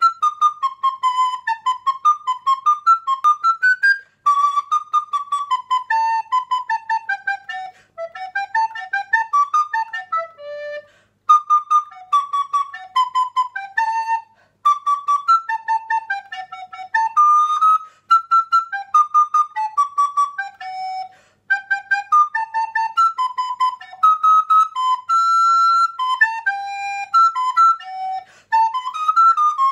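Solo descant recorder playing a lively melody of quick, detached notes, with short pauses between phrases.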